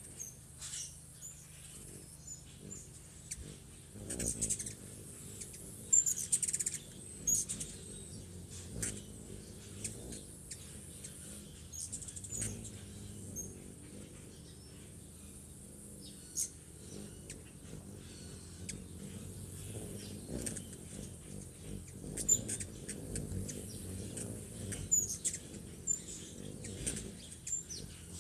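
Hummingbirds at a feeder: short, very high chirping calls scattered throughout, with the low hum of their wings swelling several times as birds hover close.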